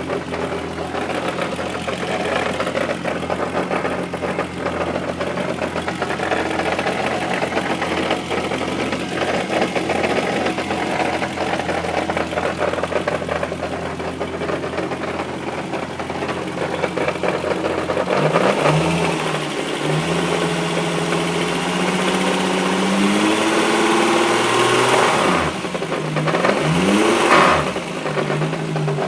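Volkswagen Corrado's VR6 engine idling steadily, then revved up and down several times in the last ten seconds or so. It is making an abnormal noise whose cause the owner leaves open.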